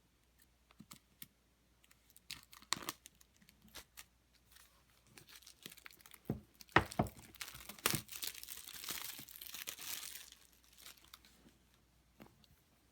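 Apple Watch packaging being handled and opened: scattered light taps and clicks, a sharp knock about seven seconds in, then a couple of seconds of tearing.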